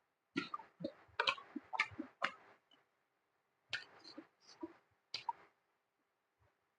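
Close-miked eating sounds: a run of wet mouth clicks and smacks from chewing and sucking food. They come in two short flurries with a pause between.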